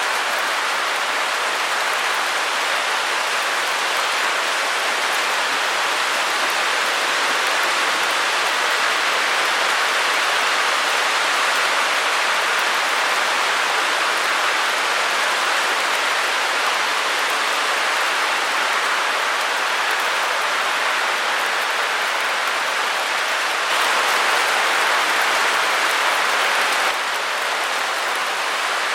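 Steady white-noise hiss, centred in the middle range with little bass. It grows slightly louder for about three seconds near the end, then drops back.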